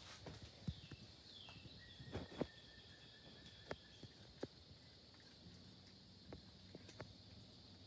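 Faint steady high trill of crickets chirping at night, with scattered soft ticks and taps.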